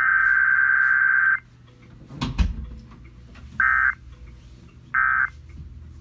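Emergency Alert System SAME digital data bursts, shrill warbling data tones: one long header burst ends about a second and a half in. After a brief loud thump, two short bursts come about a second and a half apart, the pattern of the end-of-message signal that closes the alert. A faint steady hum lies underneath.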